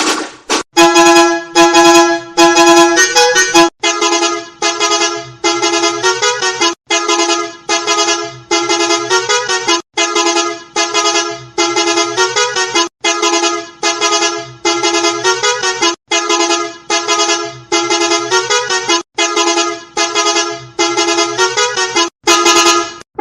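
Musical bus horns, a different one about every three seconds, each sounding a short repeated tune of loud beeping notes, several warbling between two pitches.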